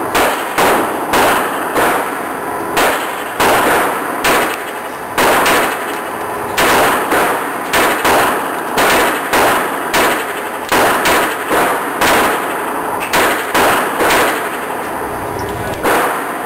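Sig Sauer Mosquito .22 LR semi-automatic pistol being fired in a long string of about two dozen shots, roughly one or two a second with a few short pauses, each crack followed by a brief echo.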